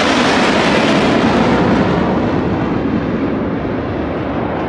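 Loud jet noise from AMX ground-attack jets flying past overhead. The hiss in the noise fades from about two seconds in as the jets move away.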